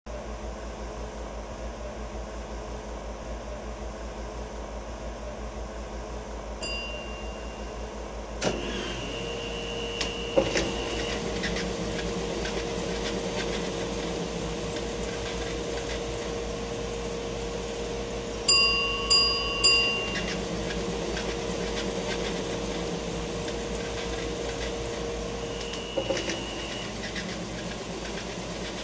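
Film projector sound: a steady low mechanical hum with a fast flutter runs throughout, and a held mid tone comes in about a third of the way through. Short high beeps and sharp clicks are laid over it, including three quick beeps about two-thirds in.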